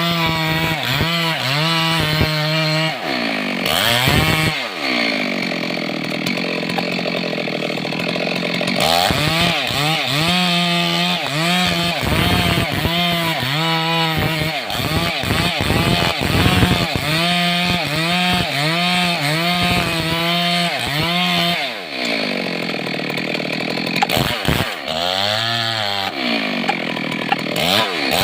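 Stihl MS382 two-stroke chainsaw running hard through a large log, its engine pitch repeatedly rising and dropping as the throttle is worked and the chain is loaded, with stretches held at steady high revs.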